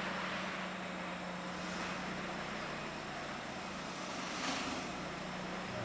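Honda Jazz hatchback with its engine running at low speed as it moves off: a steady hum under an even hiss.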